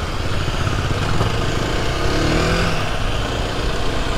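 Aprilia 125 cc single-cylinder dirt bike engine running while riding, its pitch rising briefly about two seconds in as it revs up.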